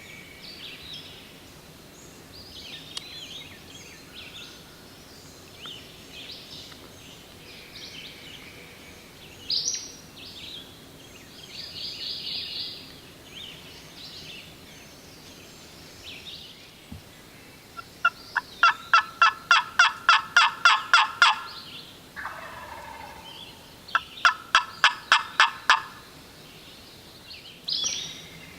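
Turkey calls: two loud, rapid series of evenly spaced notes about four a second, with a softer warbling call between them, over songbirds chirping.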